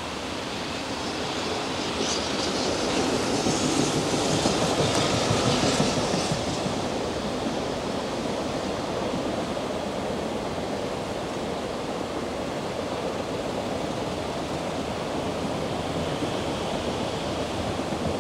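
Freight train approaching on an elevated line: a continuous low rumble and hiss, with a louder, brighter swell about two to six seconds in, as the container wagons come into view.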